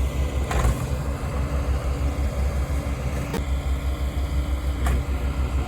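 An engine idling with a steady, pulsing low rumble, with three short clicks over it.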